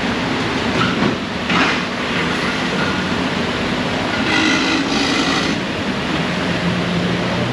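A vehicle going past with a steady, heavy rumble, and a brief high squeal about four seconds in.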